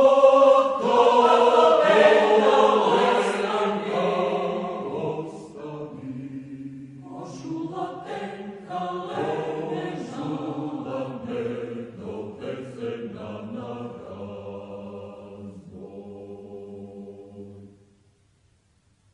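A choir singing an excerpt of a Macedonian choral work, loudest in the first few seconds, then softer, and breaking off about eighteen seconds in.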